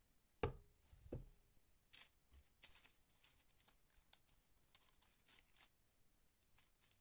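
Two light knocks, then a run of faint, short rustling and scraping noises from hands and kitchen things being handled.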